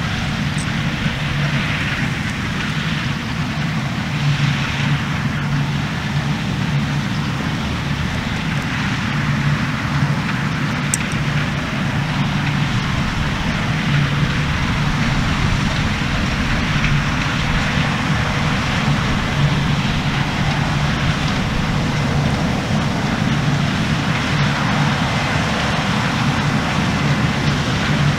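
New Holland CR10.90 combine harvester running steadily under load as it harvests oilseed rape: an even drone from the engine and threshing machinery, with no change in pace.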